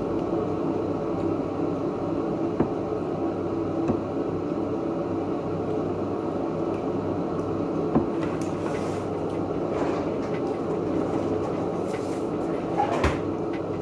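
Steady low hum of a room or appliance, with a few light clicks of a spoon against a bowl while eating.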